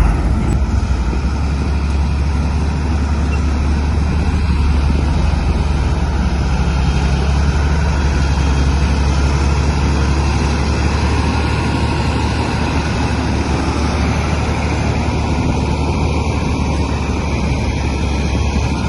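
Komatsu bulldozer's diesel engine running steadily and loudly while the dozer pushes stones, a deep engine note under a dense mechanical noise.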